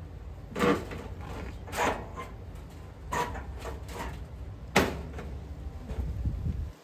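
Several separate knocks and clunks from handling parts of a Bard wall-mount HVAC unit during a condenser fan motor change, the sharpest about five seconds in, over a steady low rumble.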